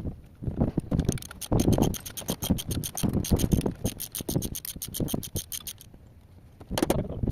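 Hand tools at work on a diesel engine during an injector change: quick, regular clicking and scraping strokes, like a wrench being worked. They stop for about a second about six seconds in, then start again.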